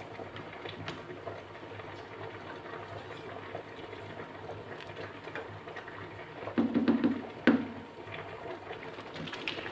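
Carrot, rice and milk mixture for gajrela simmering and bubbling in a wide pan. About seven seconds in, a spatula stirs through it and knocks once against the pan.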